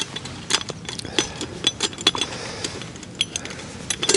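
Light, irregular metallic clicks and clinks from a Lixada stainless steel alcohol stove being handled, its folding wire legs and pot-stand frame knocking against the canister.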